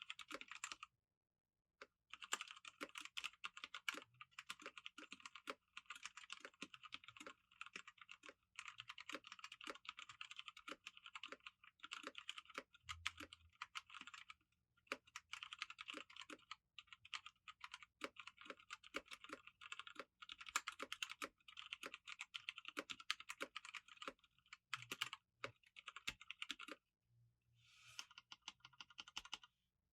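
Typing on an EVGA Z15 full-size mechanical keyboard with Kailh Speed Silver linear switches: rapid, continuous keystrokes in runs of several seconds, broken by brief pauses near the start, about halfway and near the end.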